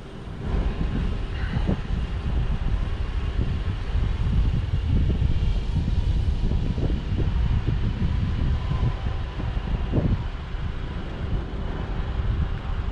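Wind buffeting the microphone, a gusty low rumble, with a faint steady hum underneath.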